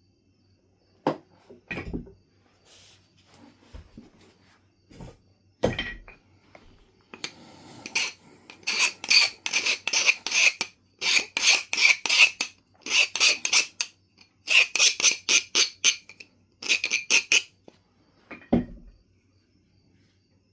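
Knife River Flint being worked: a few sharp knocks, then about ten seconds of rapid scraping strokes in quick groups, the edge of the flint being abraded to prepare striking platforms, and one more knock near the end.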